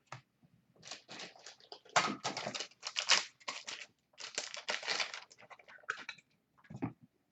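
Crinkly rustling of packaging being handled, in quick scraping bursts from about one to six seconds in, followed by a short dull thump near the end.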